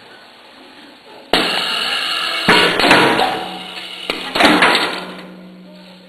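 An industrial welding/drilling fixture machine running through a cycle. A sudden loud mechanical sound starts about a second in, followed by two more loud bursts that fade away by about five seconds in.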